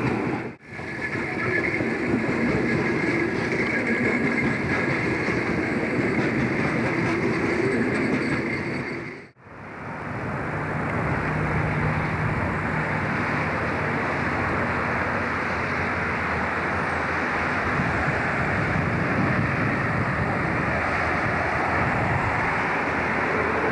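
Loaded coal train wagons rolling past on the rails, a steady rumble with a thin high tone held over it. The sound cuts out briefly twice, and after the second break a steady rushing noise carries on.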